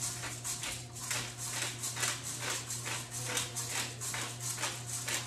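Hand-turned pepper grinder cracking peppercorns into a pot, a rhythmic grinding crunch at about three to four turns a second.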